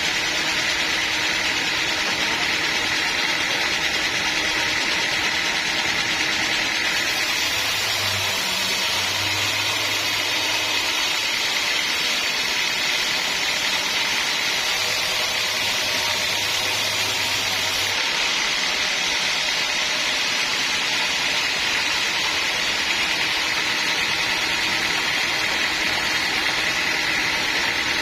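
Sawmill machinery running steadily with a constant mechanical noise. An added high hiss comes in about a quarter of the way through and stops suddenly a little past the middle.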